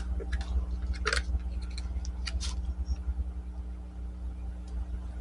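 A few short scrapes and clicks of hands working on an electrical cord, the strongest about a second and two and a half seconds in, over a steady low rumble and hum.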